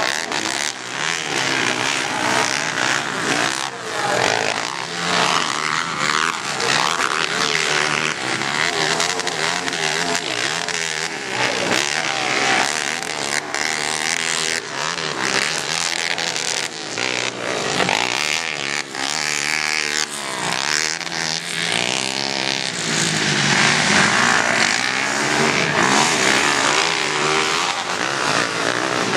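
Racing ATV (quad) engines revving up and down on a dirt track, the pitch rising and falling continually as riders work the throttle through the jumps and turns.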